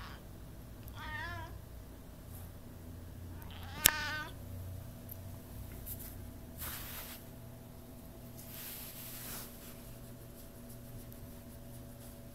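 A domestic tortoiseshell cat meowing twice, a short wavering call about a second in and a louder one about four seconds in. A single sharp click comes during the second meow, and two brief rustles follow later.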